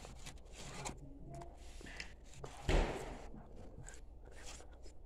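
Faint rustling, scraping and small clicks of a child eating by hand and handling things close to the phone, with one louder thump near the middle.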